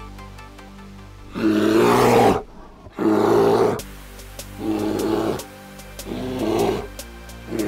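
Recorded animal-call sound effect: five rough, pitched calls of about a second each, starting about a second and a half in. The first two are the loudest and the rest are softer. Steady background music plays under them.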